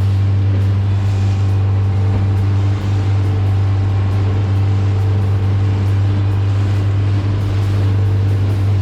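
Small fishing boat's motor running at a steady speed, a constant low drone over a rushing noise.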